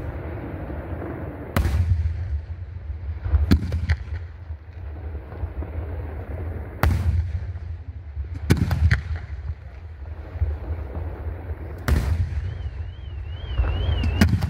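Aerial firework shells bursting overhead: sharp booms every two to three seconds, some in quick pairs, with a low echoing rumble between them.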